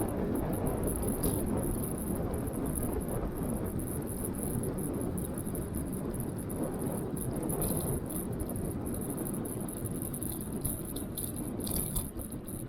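Riding noise from a TeeWing Mars XTR electric scooter in motion: a steady rush of wind and tyre noise on the microphone, with a high, flickering rattle over it.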